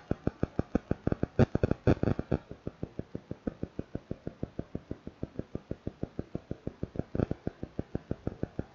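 A steady rapid pulsing, about six beats a second, with a few sharper computer mouse clicks about a second and a half in, around two seconds, and again near seven seconds.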